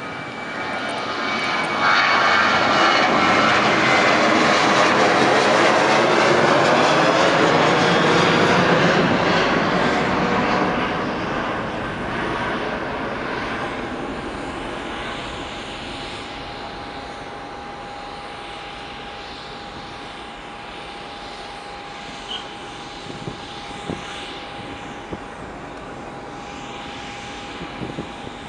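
Boeing 737-700 jet's CFM56-7B engines at takeoff power: the noise swells in the first two seconds, stays loud for about eight seconds, then fades steadily as the aircraft climbs away, leaving a steady whine underneath.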